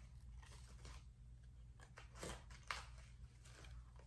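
Faint rustles and soft taps as the card pages of a spiral-bound scrapbook are turned and handled. Two slightly sharper ones come a little over two seconds in, over a low steady hum.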